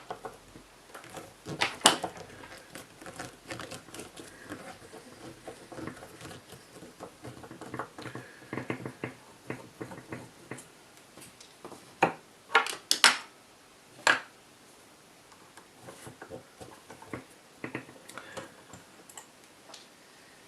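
Tools and metal rifle parts clicking, tapping and clattering as an airsoft rifle is taken apart on a desk, with a few louder knocks about two seconds in and again around twelve to fourteen seconds in.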